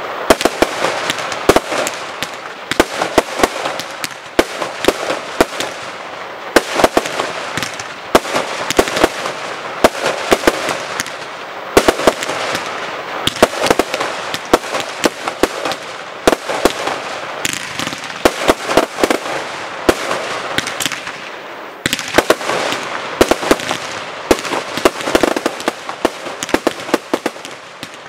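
Aerial firework shells bursting in rapid, overlapping succession: many sharp bangs over a continuous crackle.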